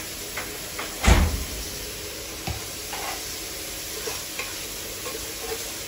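Chopped onions sizzling in olive oil in a pot while a spatula stirs them, scraping and knocking against the pot several times. There is a loud thump about a second in.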